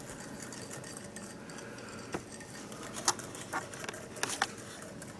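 A mini whisk ticking against the side of a small ceramic bowl while stirring a syrupy honey and brown sugar glaze: a few light clicks, spaced out and mostly in the second half.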